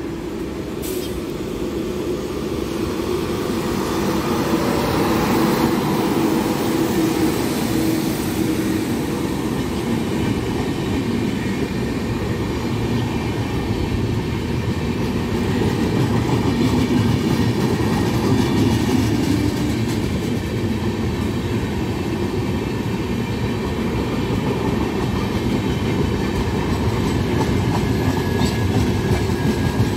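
Passenger train of LHB coaches running through a station at speed. The rumble builds over the first few seconds as the train draws near, then holds steady as the coaches pass, with wheel clatter over the rail joints.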